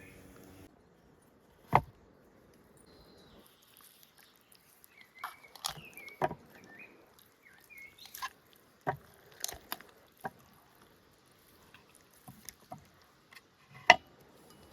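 Scattered sharp knocks and snaps, one loud about two seconds in, a cluster in the middle and the loudest near the end, with faint bird chirps in between.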